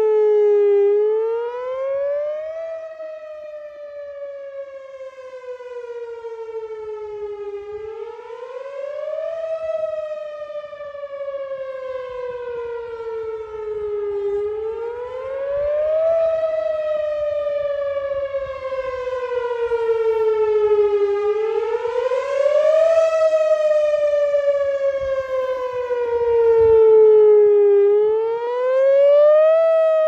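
Whelen WPS-4004 electronic outdoor warning siren sounding a wail. The pitch climbs quickly, then slides slowly back down, about every six to seven seconds. The sound swells and fades as the rotating four-horn array turns.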